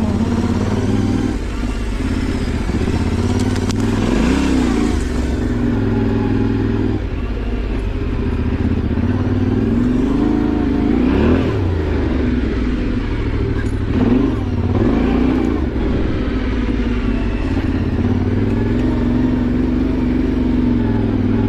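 Yamaha Ténéré 700's parallel-twin engine pulling on a trail ride, its pitch rising and falling repeatedly as the throttle is opened and closed.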